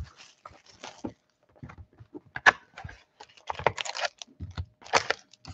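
Hands handling a cardboard Panini Limited trading-card box and lifting a pack from its tray: irregular taps, clicks and rustles. The sharpest click comes about two and a half seconds in.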